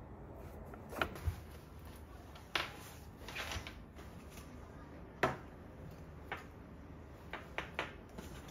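Handling a canvas tote bag on a table: a string of light knocks and clicks with a short rustle of cloth about three seconds in. The sharpest knock comes about five seconds in.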